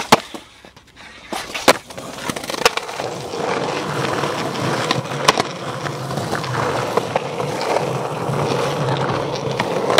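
Skateboard wheels rolling, with a few sharp clacks of the board; the loudest clacks come right at the start and just under two seconds in. The rolling noise grows steady from about two seconds in.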